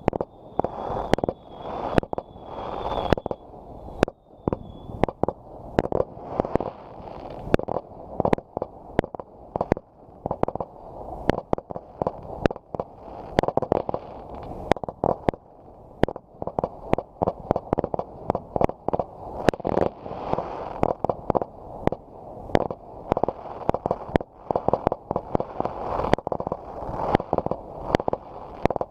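Fireworks going off in rapid, irregular succession: a steady stream of sharp bangs and pops over a continuous rumble of crackle and echo.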